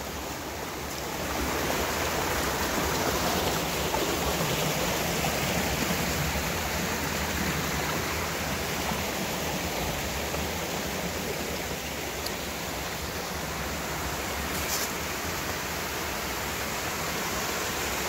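Spring-fed creek rushing and splashing over rock ledges just above the lip of a waterfall: a steady rush of water that gets louder about a second in.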